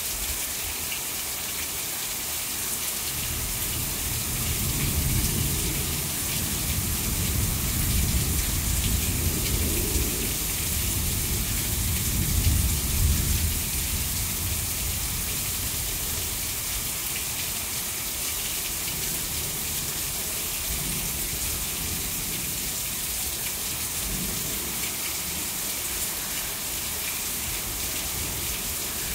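Heavy rain pouring steadily, with water streaming off the edge of a porch roof. A long low rumble of thunder swells a few seconds in, is loudest about halfway through, then fades.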